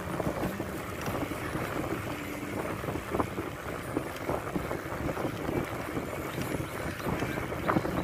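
Wind rushing over the microphone of a cyclist riding along a road: a steady noise with scattered faint clicks.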